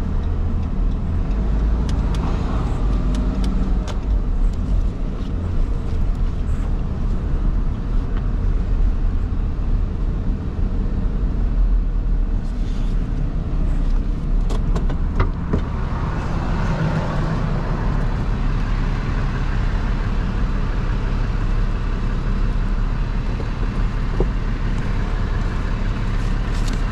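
Dodge Ram pickup driving slowly and turning, heard from inside the cab: a steady low engine and road rumble with a few faint clicks.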